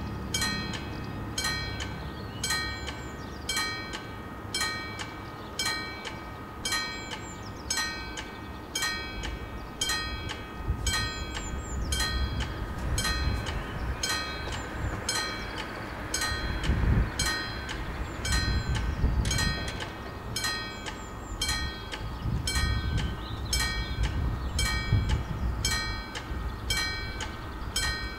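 Level-crossing warning bells ringing at an even pace, two electric bells striking slightly out of step because one is an older type. A low engine rumble rises and falls beneath them through the middle.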